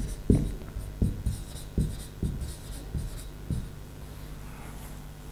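Marker writing on a whiteboard: a string of short taps and scratchy strokes, about seven in the first three and a half seconds, then quieter.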